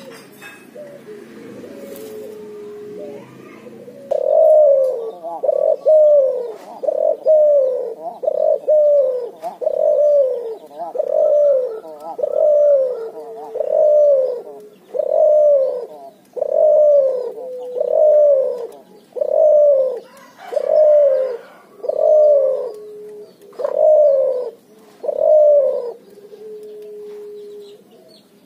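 Cuhu dove, a hybrid of the puter (Barbary dove) and the tekukur (spotted dove), cooing loudly: a long run of evenly repeated arching coos about one a second. The run starts about four seconds in and stops shortly before the end.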